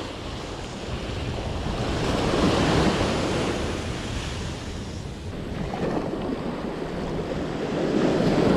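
Small ocean waves breaking and washing up the sand at the water's edge, swelling about two to three seconds in, easing off in the middle and building again near the end, with wind buffeting the microphone.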